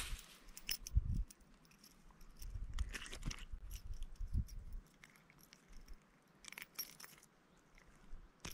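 Scattered clicks, crackles and rustles of close handling, with a few low thumps: an angler handling a freshly caught small perch.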